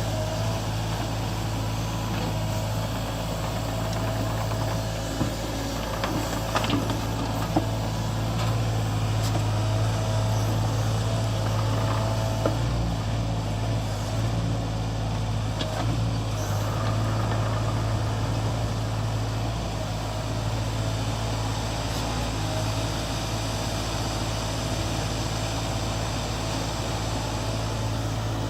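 Mini excavator's diesel engine running steadily with a low hum, with a few brief knocks about six to eight seconds in.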